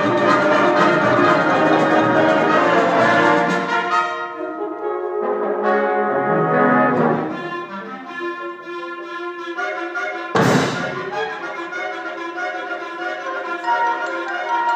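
Concert wind band playing, brass to the fore: loud full ensemble for about four seconds, then quieter held chords with separate notes moving over them, broken by a single sharp hit about ten seconds in.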